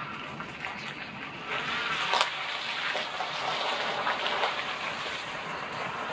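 Rain falling steadily while a car drives past on the wet road, its tyres hissing and swelling as it passes, with a sharp click about two seconds in.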